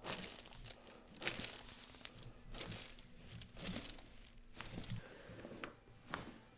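Rustling and crinkling as a patient shifts and turns on a treatment table, broken by about six sharp clicks roughly a second apart.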